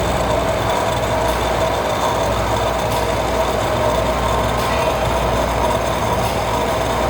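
Metal lathe running steadily in a machine shop: a continuous machine hum with a steady whine.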